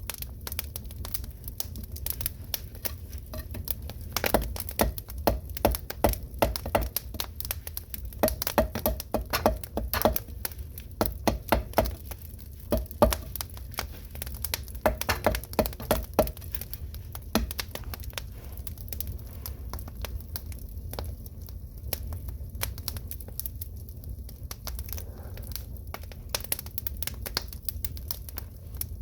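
Firewood burning in a traditional Korean agungi firebox: irregular crackling and sharp pops over a steady low rumble of the fire. The popping is loudest and thickest from about four seconds in until past the middle, then thins out.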